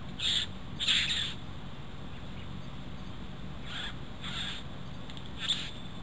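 A young green-plumaged male satin bowerbird giving about five short, harsh rasping calls at its bower, the loudest about a second in.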